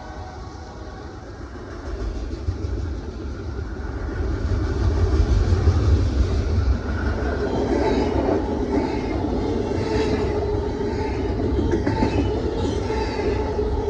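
Double-stack intermodal freight train rolling past close by: a low, steady rumble of the well cars that grows louder about four seconds in, with faint repeated clicks of the wheels over the rails in the second half.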